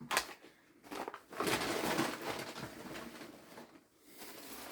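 Packaging and an item being handled, with crinkling and rustling that is strongest in the middle and a click at the very start.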